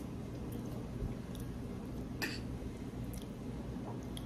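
Quiet mouth sounds of people eating chocolate-covered strawberries: soft chewing and small lip smacks and clicks, one sharper click about two seconds in, over a steady low hum.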